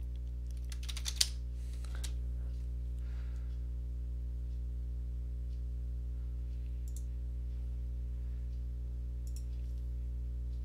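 A few scattered computer keyboard keystrokes as a name is typed, a quick cluster of clicks at the start and then single clicks a few seconds apart, over a steady low electrical hum.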